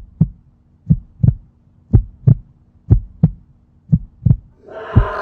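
Heartbeat sound effect: paired low thumps, lub-dub, about one beat a second. Music starts to swell in near the end.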